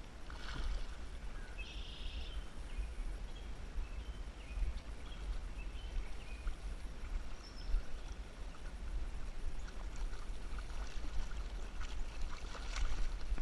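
River water running, with wind rumbling on the microphone, and a few sharp clicks near the end.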